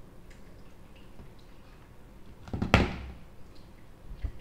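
A single loud thump about two and a half seconds in, with a short ringing tail, followed by a fainter low bump near the end.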